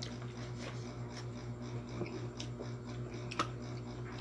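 Small clicks and smacks of people eating, chewing and handling food and utensils at a table. The sharpest click comes about three and a half seconds in, over a steady low hum.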